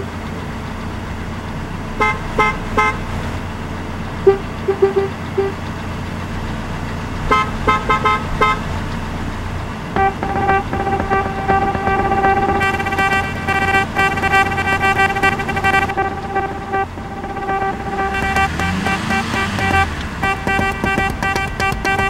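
Car horns honking in short groups of beeps. About ten seconds in, a horn starts sounding in a rapid, near-continuous stutter as the horn pad on the steering wheel is beaten with drumsticks.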